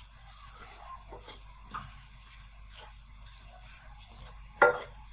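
Minced chicken frying in a pan with freshly added spices and lemon juice, sizzling steadily while it is stirred, with light scrapes. Near the end a louder knock, the stirrer striking the pan.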